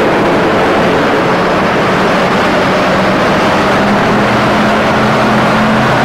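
Red LiAZ-677 city bus with a petrol V8 engine approaching and passing close by. Its engine makes a steady low tone that rises slightly in pitch, amid a loud wash of traffic and street noise.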